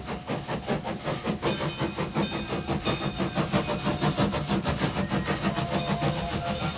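Train sound effect: the steady clickety-clack of rail wheels in a quick, even rhythm over a low rumble.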